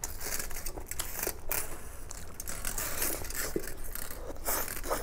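Close-up eating noises of a person chewing a mouthful of noodles, with many small irregular clicks and crackles.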